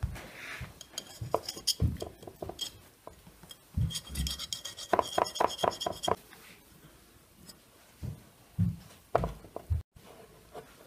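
Kitchen knife cutting a round chocolate sponge cake around an upturned china plate: irregular scraping and ticking of the blade against the plate's rim, with a longer scrape about four to six seconds in.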